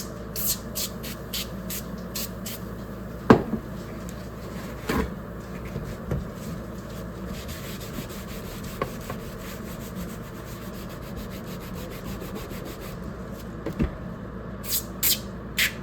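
A part being cleaned by hand: a quick run of short, high, hissy rubbing strokes, then a few sharp knocks and a quieter stretch, then another run of strokes near the end.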